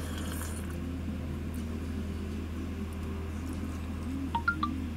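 Steady low drone of a GAZelle truck's engine and road noise heard from inside the cab while driving, with a few short high beeps near the end.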